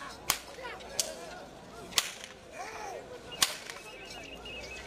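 Handlers' rope whips cracking sharply four times, about a second apart, driving a pair of bulls dragging a stone block.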